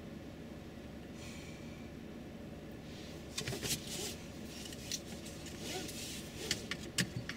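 Steady low hum inside a vehicle's cabin. From about three seconds in come sharp clicks and short rustles of handling noise, which grow more frequent near the end.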